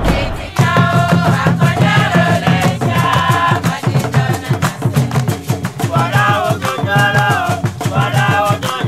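Upbeat background music starting about half a second in: a song with a fast, steady percussion beat, a bass line and a bending melodic line.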